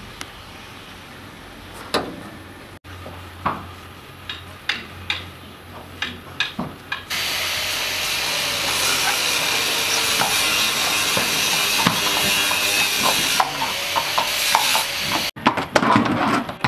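Metal bolt and latch clicks and knocks on a wooden stable door, then a loud steady hiss for about eight seconds, cutting off suddenly. Near the end a horse's hooves knock on concrete as it steps out of its stall.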